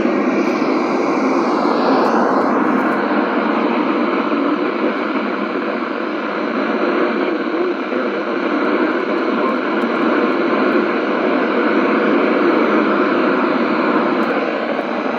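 Steady hiss of radio static from a NOAA Weather Radio receiver.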